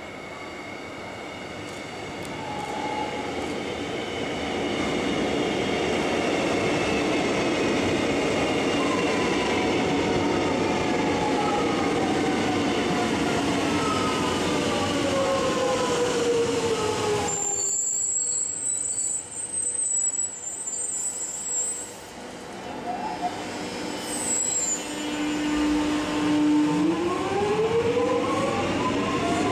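X'Trapolis electric train coming into the platform, its traction motors whining in several tones that fall in pitch as it slows, over wheel and rail noise that grows louder. The sound changes abruptly about two-thirds through, and near the end a train's motor whine rises in pitch as it pulls away.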